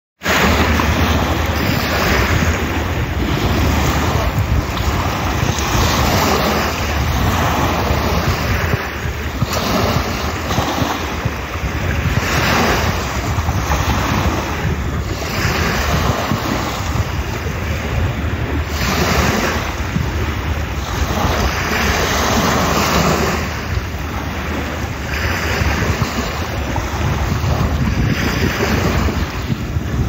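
Small waves washing onto a pebble shore, a rush every two to three seconds, with wind on the microphone as a steady low rumble underneath.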